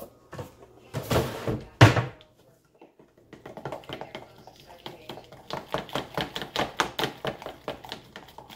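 A couple of heavy thunks about a second in, then a spoon stirring pancake batter in a plastic measuring cup, making quick, steady clicks against the cup's sides.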